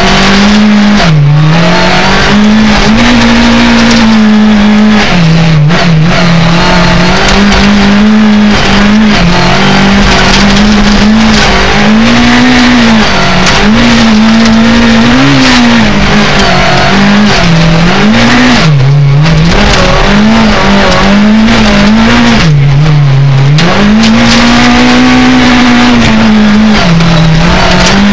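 Rally car engine heard loud from inside the cabin at full racing effort, its revs climbing and dropping sharply again and again with gear changes and lifts for corners. A steady hiss of tyres on gravel runs under it.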